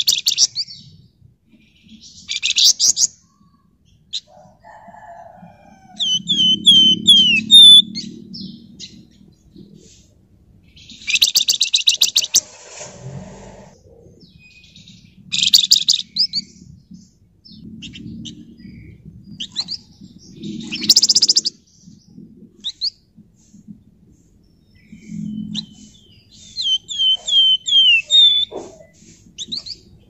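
A caged flamboyan songbird sings in loud bursts every few seconds. The bursts are dense rapid chattering trills and runs of short sliding whistles, with soft low thuds in between.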